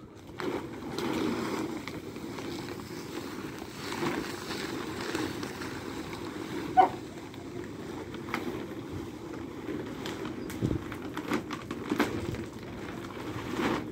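Dry dog kibble poured from a large paper sack onto a plastic sheet: a continuous rattling patter of pellets along with rustling of the sack. There is one brief, sharp, louder sound about seven seconds in.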